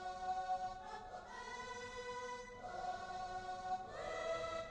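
Layered software choir instrument playing sustained strummed chords, stacked across three octaves, changing chord three times.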